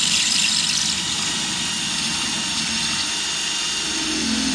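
Cordless DeWalt drill running steadily under load, spinning a swaging tool into the end of a quarter-inch copper refrigerant tube to form a swage. A high hiss is strongest in the first second, and a lower drone joins about four seconds in.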